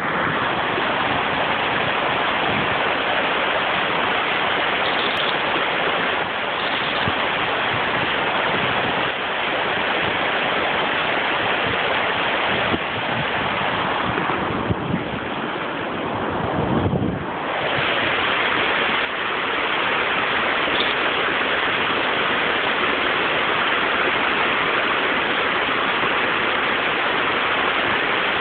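Steady rush of flowing stream water and a small waterfall, running evenly throughout, slightly quieter for a few seconds around the middle.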